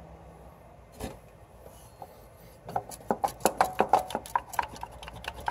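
A plastic coolant bypass elbow on a 3800 V6 being twisted and worked loose by hand: a single click, then from about two and a half seconds in a rapid, uneven run of clicks and creaks, about five a second.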